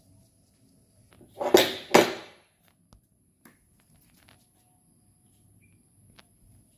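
Two loud, short noisy strokes about half a second apart, from hand work on a sandal during sole repair, followed by a few faint clicks.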